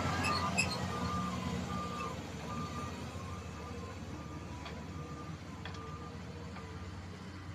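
Heavy-equipment backup alarm beeping steadily, about once a second, over a low-running engine, with a couple of sharp knocks midway.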